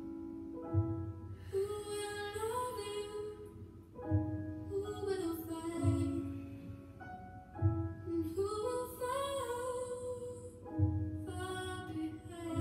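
Slow background music: a woman singing a wavering melody over held keyboard chords, with soft low beats every few seconds.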